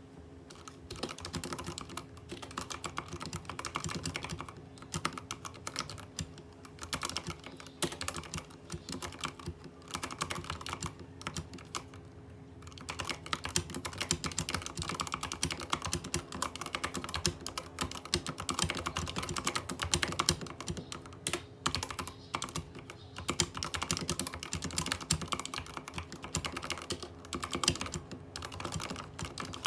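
Typing on a Rakk Ilis mechanical keyboard with Outemu Red linear switches and PBT keycaps: rapid runs of keystrokes, with a few brief pauses, the longest about twelve seconds in.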